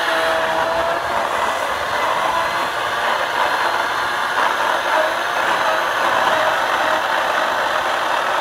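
A 14-inch electric chainsaw running steadily at full speed while its chain cuts into a tree stump: a continuous motor whine with the chain rasping through the wood.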